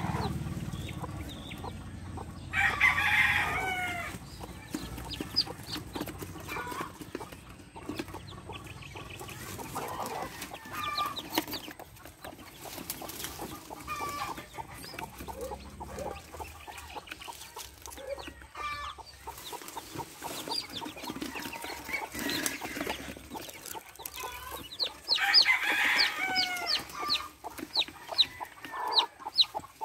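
Newly hatched chicks peeping in quick, high calls, more densely near the end, with an adult chicken clucking loudly twice, near the start and again near the end. Faint rustling of dry leaves between the calls.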